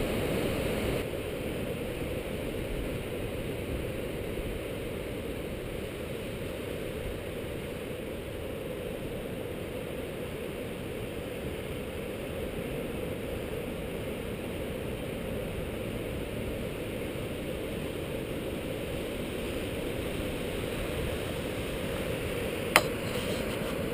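Steady rushing noise of wind and the sea surf below, with a single sharp click about a second before the end.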